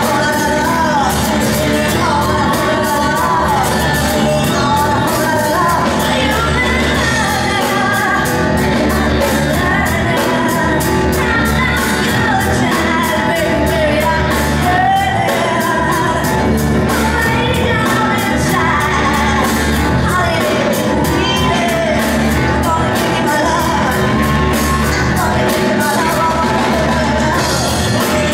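Live cabaret jazz band playing, with piano, upright double bass, drums and saxophone, and a singer's voice over a steady drum beat.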